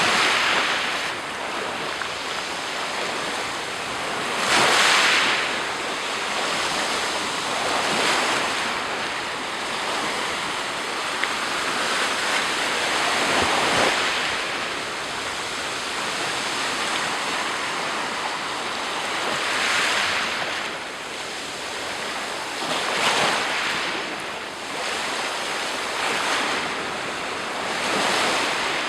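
Black Sea surf: waves breaking on the shore, a surge every three to six seconds over a steady wash of water.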